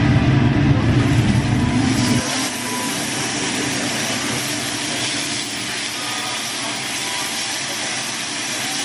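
Thinly sliced pork belly sizzling on a hot tabletop Korean BBQ grill plate, a steady loud hiss. A deep low rumble underneath cuts off suddenly about two seconds in.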